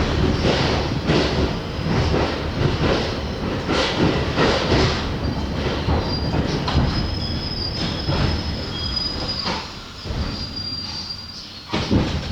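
R62 subway car running through the tunnel, its wheels clacking over rail joints under a steady rumble. A thin high wheel squeal comes and goes through the middle, and the rumble eases near the end.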